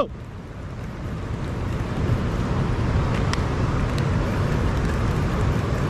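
Steady wind buffeting the microphone, a low rumbling noise, with two faint clicks about three and four seconds in.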